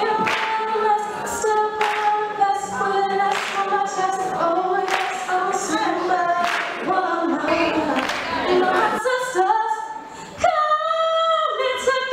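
A woman singing into a microphone on a stage PA, holding long sung notes over sharp beats about every second and a half.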